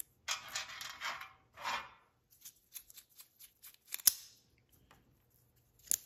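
Aluminum parts and small disc magnets of a magnetic fidget toy being handled as it is taken apart. Two short bursts of scraping come in the first two seconds, then a run of small metallic clicks, the sharpest about four seconds in and another near the end.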